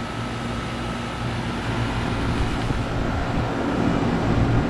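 Goodman 13 SEER central air conditioner's outdoor condensing unit running steadily: a low compressor hum under the even rush of the condenser fan.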